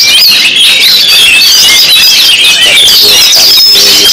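Dense chorus of many caged songbirds singing at once: overlapping rapid, high-pitched whistles, trills and chirps with no pause.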